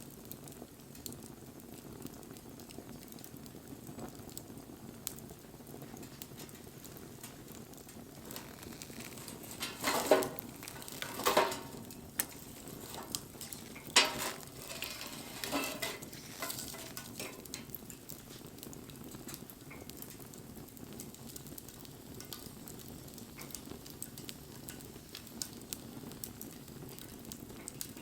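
Wood campfire burning, crackling steadily with faint scattered ticks and pops, and a few louder bursts of crackle between about ten and sixteen seconds in.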